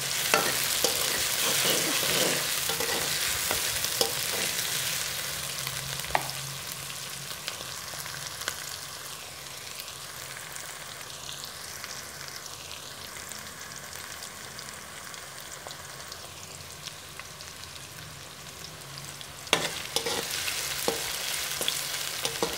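Sliced onions sizzling in hot oil in a metal karahi. A spoon stirs and scrapes the pan at the start and again near the end, and the sizzle is quieter in between.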